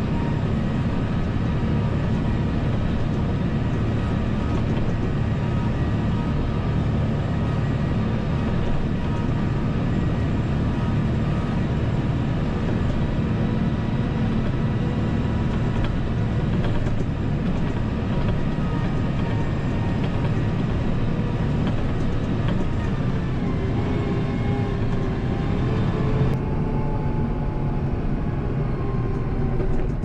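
Kubota M7060 tractor's four-cylinder diesel running steadily under load while pushing snow, heard from inside the cab, with the cab's blower fan hissing over it; the higher hiss drops away near the end.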